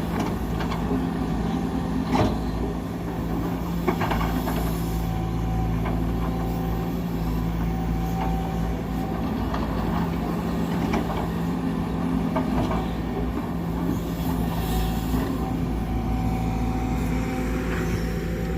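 Heavy diesel engine running steadily, with a few sharp knocks around the start, about two seconds in and about four seconds in.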